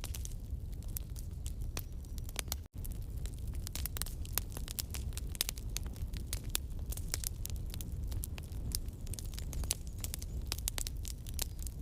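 Wood campfire crackling, with frequent sharp irregular pops and snaps over a low steady rumble of the flames. The sound cuts out for an instant a little under three seconds in.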